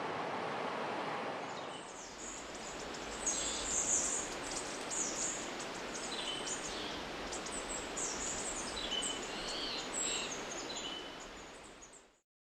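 Forest ambience: the steady rush of river water at first, then, after a change about two seconds in, a softer background with scattered high-pitched bird chirps and calls. The sound fades out near the end.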